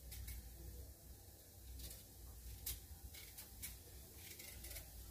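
A small knife peeling a sweet potato, its blade making faint, irregular short scrapes through the skin, over a low steady hum.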